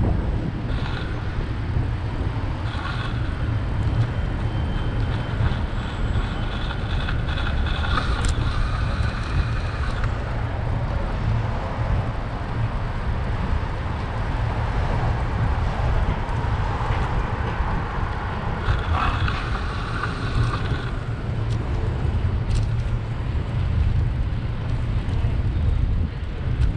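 Wind rumbling steadily on the microphone of a moving bicycle, with city street traffic passing.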